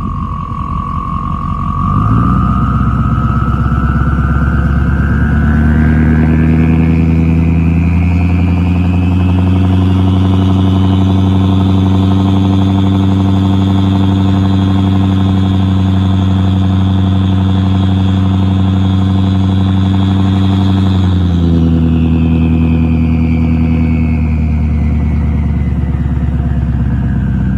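Ford 6.0 Powerstroke V8 turbodiesel revved up from idle, held at high revs for over ten seconds, then let back down. A loud turbo whistle climbs in pitch with the revs, holds steady, and falls away as the engine returns toward idle.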